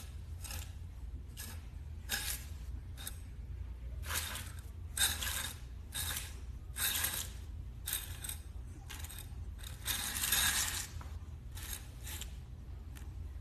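A Nikon camera dragged in jerks across a hard floor by its strap, giving an irregular series of short scrapes, one with each tug, over a low steady hum.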